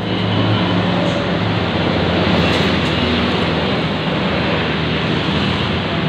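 A passing road vehicle: steady engine and road noise, held at one level, with no horn tones after the first half-second.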